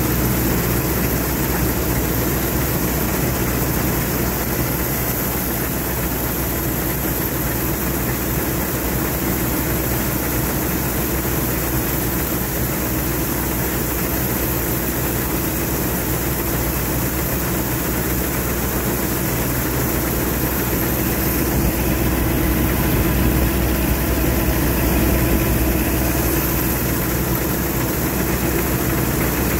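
Massey Ferguson 86 combine harvester running steadily while it cuts barley: the engine runs, and the header reel and threshing machinery work, heard from the operator's platform. It gets a little louder for a few seconds just past twenty seconds.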